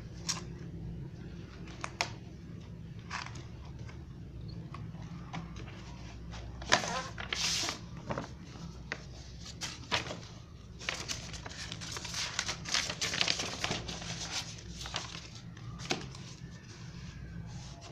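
Calendar packaging being unwrapped and handled: scattered taps and clicks, with bursts of crinkling about seven seconds in and again from about eleven to fourteen seconds, over a steady low hum.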